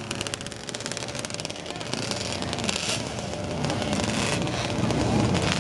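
A classic racing motorcycle engine running with a rapid firing beat that fades away within the first second or so as the bike pulls off. Bystanders' voices follow over a background of distant engines.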